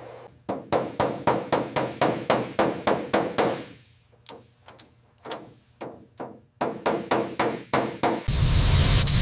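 Hammer blows in quick succession, about four a second, in two runs with a few scattered strikes between them. Near the end a loud steady hiss of air or spray takes over.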